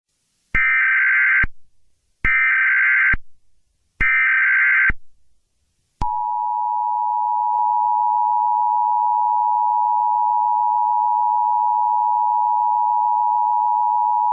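Emergency Alert System tones: three short bursts of screeching SAME header data about two seconds apart, then about eight seconds of the steady two-tone EAS attention signal, announcing an emergency alert broadcast.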